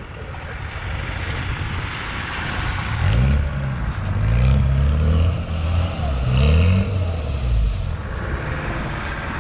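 A bogged-down Land Rover Defender's engine revving in several surges, rising and falling, with its wheels spinning in deep mud as it tries to drive out. This comes over a steady rushing noise.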